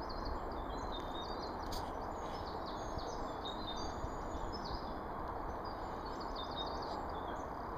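Small birds chirping and singing in short repeated phrases over a steady outdoor background hiss and rumble, with a single brief click about two seconds in.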